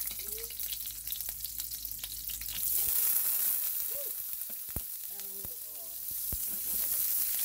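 Sliced onions dropped into hot olive oil in a skillet, sizzling steadily. The sizzle swells about three seconds in and again near the end as more onions go in, with a few light clicks.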